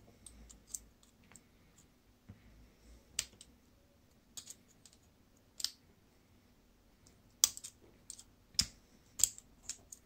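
Light, scattered metallic clicks and taps of a small metal tool and fingers working on a brass-and-steel euro-profile lock cylinder (a DOM RS8) as it is taken apart. The clicks are sparse at first, then come louder and closer together over the last few seconds.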